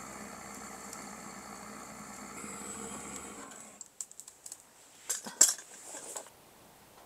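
A steady hiss for about the first three and a half seconds, then scattered sharp clicks and crackles from a wood fire burning in a small steel wood stove, the loudest crack about five seconds in.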